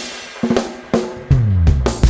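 Drum kit playing a lead-in fill, snare and bass-drum hits with cymbals about every half second. Bass guitar and keys come in about a second and a half in as the full reggae band starts the groove.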